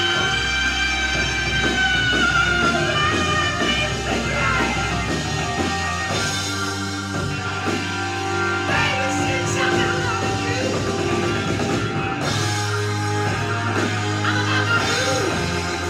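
A song with singing, played from a vinyl record on a turntable through a vintage hi-fi amplifier and speakers.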